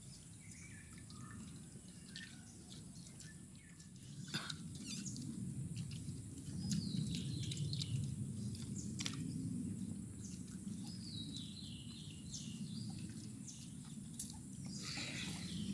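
Birds chirping in short falling runs, with a few sharp clinks of steel tiffin tins as people eat by hand. Under it runs a low rumble that grows louder about four seconds in.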